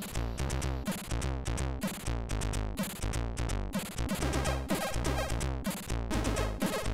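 Commodore 64 SID chip music played on a 6581 sound chip: an electronic chiptune with a stepping bass line, rapidly changing synth notes above it and a steady beat of noise-like drum hits.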